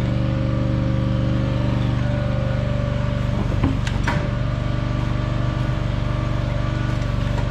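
Crane engine running at a steady speed while it takes up the lift on the chain. A couple of short metal clinks come a little past halfway.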